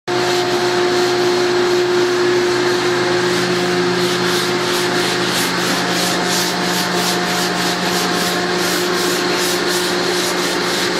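Sanding across a CNC-carved, wave-sculpted MDF panel: a quick, even rhythm of rasping strokes, about three a second, that stands out from about four seconds in, over a steady machine hum.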